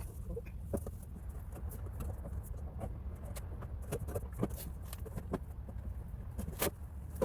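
Wind rumbling on the microphone, with scattered small clicks and taps of metal fasteners and parts being handled during assembly, and a sharper click near the end.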